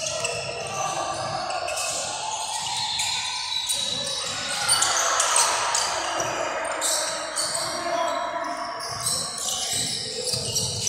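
Basketball bouncing repeatedly on a hardwood gym floor during play, with players' and spectators' voices in a large gym.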